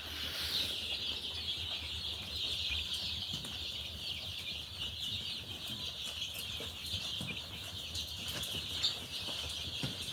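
A group of baby turkey poults peeping, many high-pitched chirps overlapping into a constant chorus, with a faint low hum underneath.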